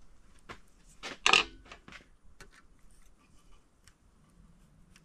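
Light metal-on-metal clicks and ticks from hands working a timing-style oil pump drive chain against a steel rule, with one louder clatter about a second in.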